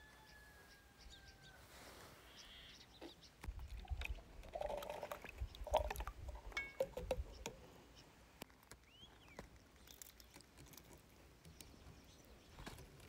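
Wild olives and their brine tipped from a plastic jar into a plastic tub: a few seconds of faint splashing, rattling and plastic handling clicks in the middle. A few faint whistled bird calls near the start and about two-thirds of the way through.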